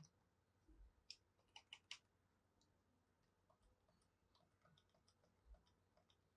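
Very faint computer keyboard typing: a handful of key clicks between about one and two seconds in, then fainter scattered ticks.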